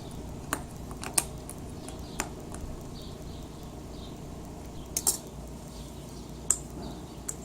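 Scattered sharp clicks and taps of hand tools and metal parts being handled at an air conditioner blower's capacitor, over a steady low hum.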